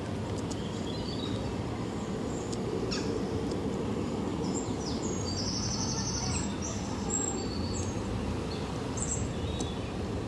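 Small birds chirping: scattered short, high chirps, with a quick trill about five seconds in, over a steady low background noise.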